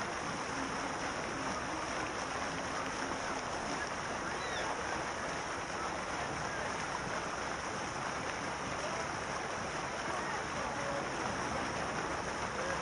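Steady poolside ambience: a constant rush of running and splashing water with faint, distant voices of bathers.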